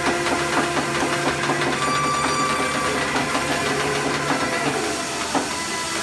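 Rack tube roll forming machine running: a steady mechanical whir and hiss with several held tones as the square steel tube feeds through the forming rollers. Some of the tones drop away near the end.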